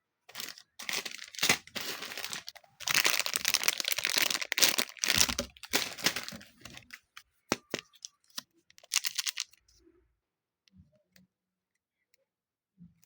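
Super light clay being squeezed and pulled apart by hand, giving dense crackling, crinkling sounds that stop about ten seconds in, after which only a few faint ticks are heard.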